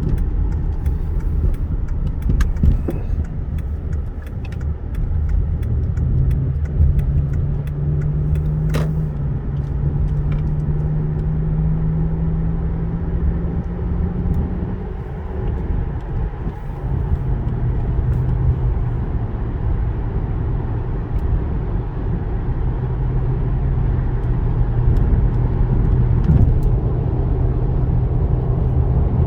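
Cabin sound of a 2006 Lexus LS430's 4.3-litre V8 accelerating onto the interstate: the engine note climbs for several seconds, drops at an upshift about 15 seconds in, then holds steady over road and tyre rumble.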